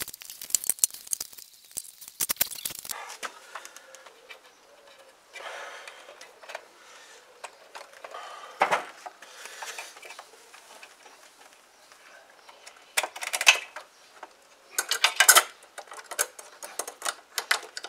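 Scattered metallic clicks, clinks and rattles of a motorcycle clutch cable and its end fittings being handled as the cable is fed through and brought up to the handlebar lever, with a run of louder clicks in the last few seconds.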